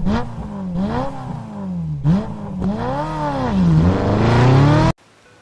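An engine revved up and down about five times, each rev a rise and fall in pitch lasting about a second, then cutting off suddenly near the end.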